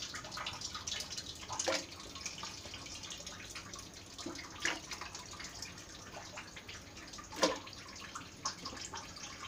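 Pieces of raw mango dropped into a pan of water, making small irregular splashes and plops a second or more apart, over a faint steady hiss.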